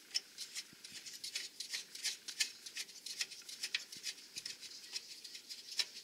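Light, irregular metallic clicks and scrapes of an oil burner's gun assembly (fuel nozzle and igniter electrodes) being worked by hand back into the burner housing.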